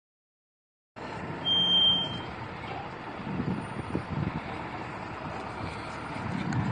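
Heavy tow truck's engine running as its crane lifts an overturned armoured vehicle, starting about a second in. A high, steady beep lasting under a second sounds about a second and a half in.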